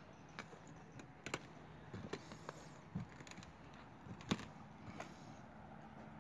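Footsteps on flat roof tiles: irregular light clacks and knocks of the tiles under foot, the sharpest about four seconds in.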